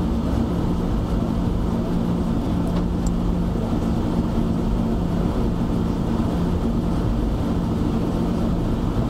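Steady low hum of a car's idling engine, heard from inside the cabin while the car stands in stopped traffic.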